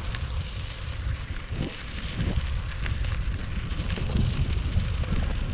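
Wind buffeting the microphone of a moving bicycle over the steady rumble of its tyres rolling on a paved trail.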